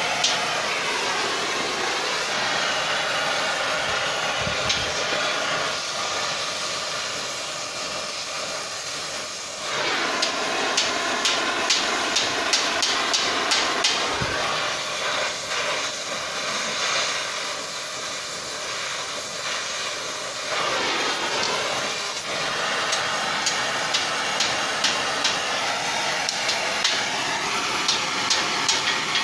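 Gas cutting torch flame hissing steadily while heating a wrapped steel collar, with runs of light, quick hammer taps on the hot wraps, several a second.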